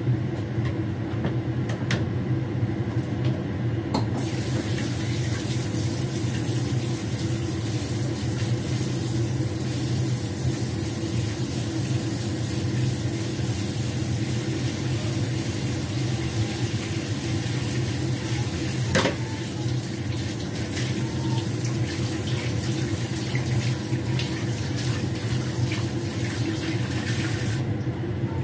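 Kitchen tap running into a sink, a steady rush of water that starts about four seconds in and stops just before the end, with a couple of sharp clinks of dishes. A steady low hum runs underneath.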